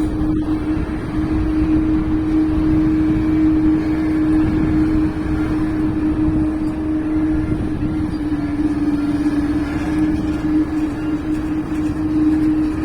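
Jet engines of a landing Boeing 737 running with a steady drone and a strong humming tone over a low rumble; the tone sags slightly in pitch about two-thirds of the way through, then comes back.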